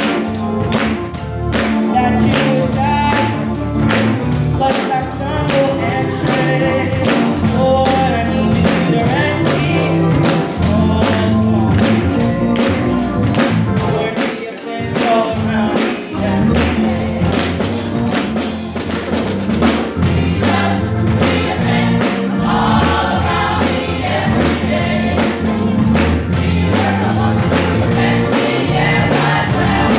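Gospel choir singing over a band with a steady, driving beat.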